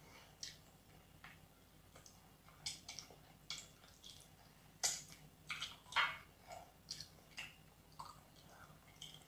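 Wet chewing and lip-smacking as handfuls of rice and chicken curry are eaten by hand: irregular short clicks and smacks, loudest about five and six seconds in.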